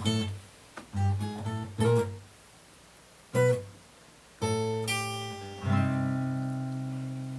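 Acoustic guitar playing a slow, sparse ending: single plucked chords with gaps between them, then a final chord about two thirds of the way in that is left to ring and slowly fade.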